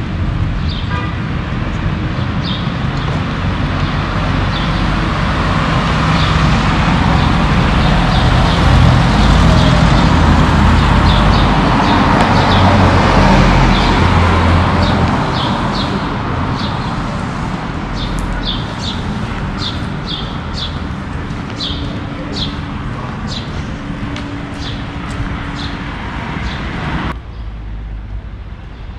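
Street traffic: a motor vehicle passes, its engine and tyre noise swelling to a peak around the middle and then fading over a steady traffic hum. Short, sharp high ticks keep coming through it, more often in the second half. The sound drops off suddenly near the end.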